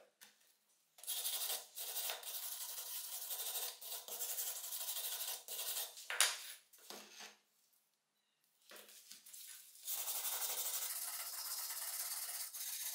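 A stiff hand brush scrubbing dust and rust off the metal body of a rusted antique pneumatic nailer, in two long spells of scratchy brushing with a pause between them. A single sharp knock comes about six seconds in.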